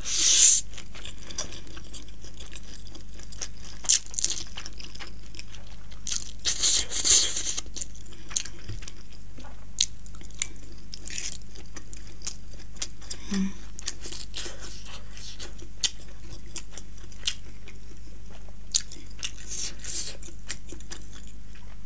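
Mouth sounds of eating spicy instant ramen noodles: a noodle slurp at the start and another loud slurp-like burst around six to seven seconds in. Between them is chewing with many small wet clicks.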